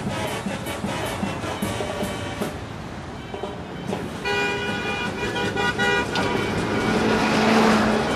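City street traffic, with a vehicle horn sounding a held, several-toned blast for about two seconds starting around four seconds in. Near the end a vehicle passes close and its noise swells.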